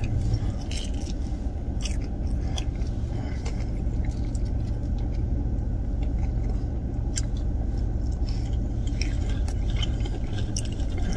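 A man chewing a mouthful of crispy seasoned potato wedges, with small wet clicks and crunches, over a steady low hum in a car cabin.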